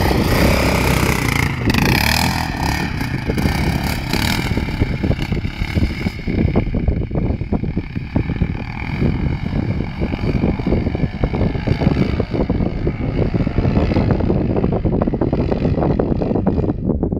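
Yamaha sport ATV engine revving hard as the quad pulls away. Its note fades after a few seconds as it rides off across the sand, with wind buffeting the microphone throughout.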